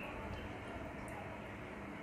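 Faint steady hiss with a few tiny ticks from a pan of oil heating on the stove.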